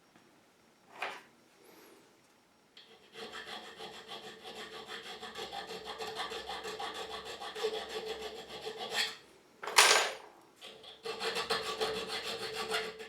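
A metal hand file rasping on a key blank's bit in quick, even back-and-forth strokes, filing down the bitting because every lever is still overlifted. The filing pauses about two-thirds of the way through for two louder knocks, then starts again.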